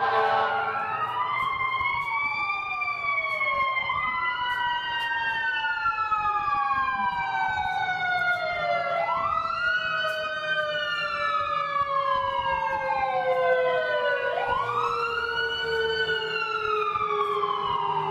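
Emergency-vehicle sirens wailing, several overlapping, each rising quickly and falling slowly about every five seconds, with long steady tones sliding slowly downward underneath.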